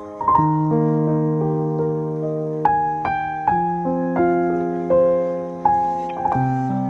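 Background piano music, slow notes and chords struck about once a second and left to ring.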